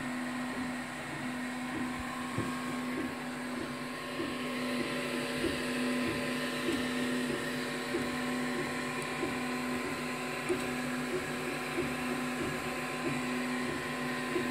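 A 3D printer running mid-print: its fans hum steadily, with short chirps repeating every half second or so. The hiss of the fans grows a little about four seconds in.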